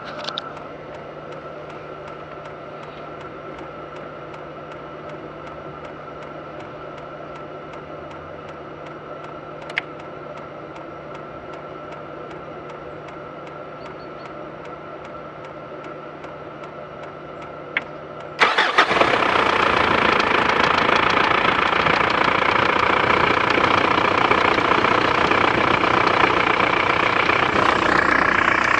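Mitsubishi 4M41 3.2-litre four-cylinder turbodiesel starting about two-thirds of the way in, after a quieter steady hum and a couple of clicks, then idling steadily. This is an engine whose owner reports a knock in it.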